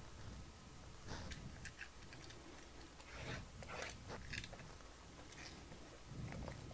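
Faint, scattered crinkles and light clicks of a shrink-wrapped trading-card box being handled, its plastic wrap worked at by the fingers.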